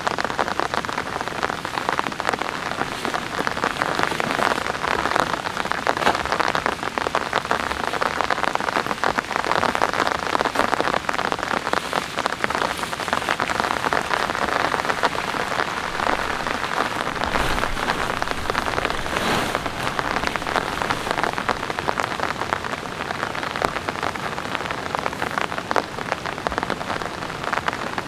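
Heavy rain falling steadily: a dense, even hiss of countless drops striking surfaces. A dull low thump sounds briefly a little past the middle.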